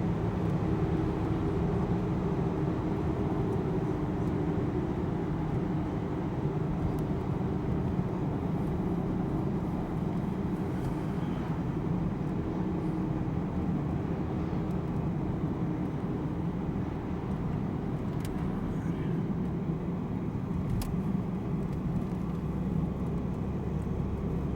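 Steady low rumble of a moving road vehicle, its engine drone and road noise holding even, with a few faint clicks.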